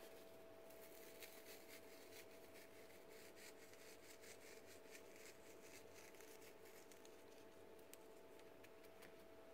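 Near silence: room tone with a faint steady hum and scattered light ticks and rustles.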